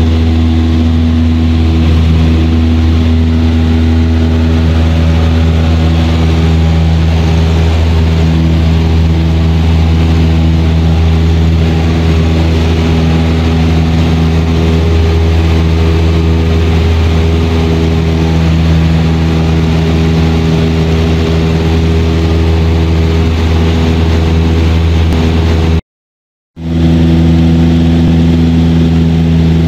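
Cessna 172's piston engine and propeller droning steadily at climb power just after takeoff, heard from inside the cabin. The sound drops out for about half a second near the end and returns at the same steady drone.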